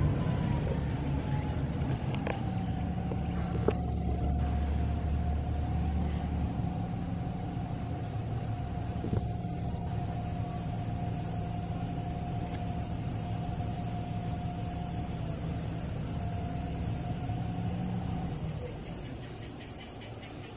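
A low motor rumble with a steady whine that slides down in pitch over the first few seconds, then holds and stops near the end. Insects trill steadily and high over it.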